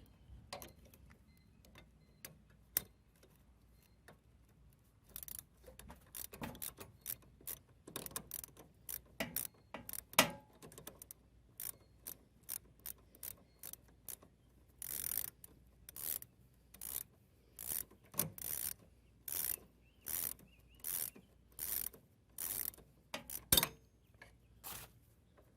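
Hand ratchet wrench clicking in repeated short strokes, about one to one and a half a second, from about five seconds in, a few lone clicks before, as a tight nut is worked off a bolt.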